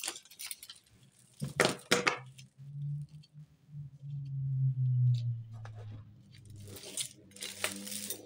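Costume-jewellery beads and chains clinking and rustling in short bursts as a tangled heap is sorted by hand. A low steady hum comes in for about three seconds in the middle and is the loudest sound.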